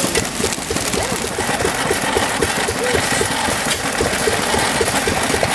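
Vintage stationary engine running steadily, driving belt-driven machinery with a fast, even clatter.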